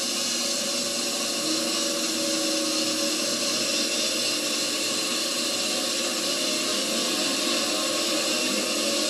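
Several race snowmobiles' two-stroke engines running together at the start line: a steady, high-pitched mechanical drone under a heavy hiss.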